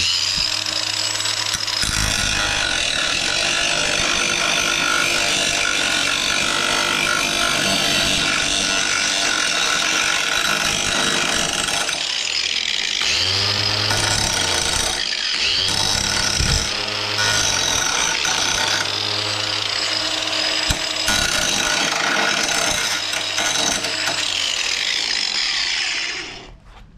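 Cordless Ryobi angle grinder running with an abrasive disc pressed against the end of a clamped metal angle piece, grinding its corners round. The grinding is continuous, with a few brief changes in load midway, and it stops just before the end.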